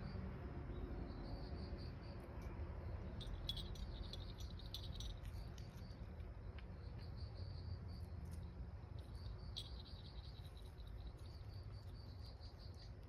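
An insect chirping outdoors in a steady high-pitched pulse, about three pulses a second. A few short, sharper chirps come around four seconds in and again near ten seconds.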